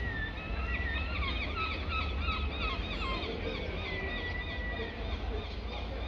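A bird calling a rapid run of short repeated chirping notes, with a longer held whistled note about four seconds in, over a steady rumble of wind on the microphone.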